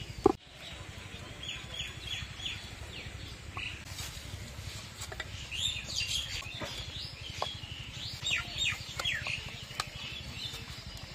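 Birds chirping repeatedly in short, high, falling chirps, some in quick runs of four or five, with a single sharp knock just after the start.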